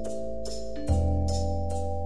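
Background music: held synth-like notes over a bass line with a steady percussive beat; the bass note changes about a second in.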